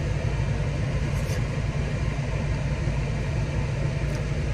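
A car engine idling, a steady low rumble.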